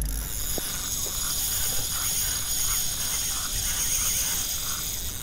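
Spinning reel working under load from a hooked fish: a steady mechanical ratcheting whirr with a soft pulse about two to three times a second.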